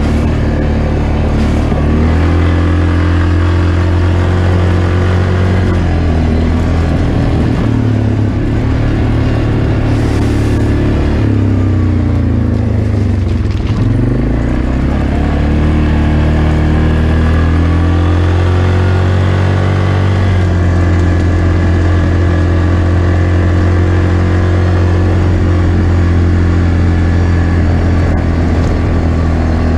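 Yamaha Grizzly ATV engine running steadily under way on a dirt trail, heard from a camera mounted on the machine. About halfway through its pitch sinks as the ATV slows over a gravel stretch, then climbs again as it speeds back up.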